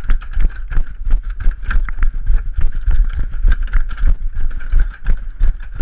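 Running footsteps thudding on the boards of a wooden jetty, several footfalls a second, with wind rumbling on the microphone.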